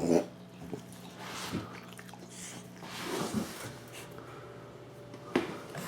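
A few short, soft sounds from a Miniature Bull Terrier after drinking water, and one sharp click about five seconds in, over a faint steady hum.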